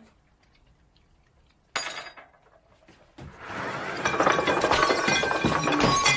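One sharp clink of tableware a little under two seconds in, then from about three seconds a loud, continuous commotion of dishes and glass clattering and shattering at a dinner table.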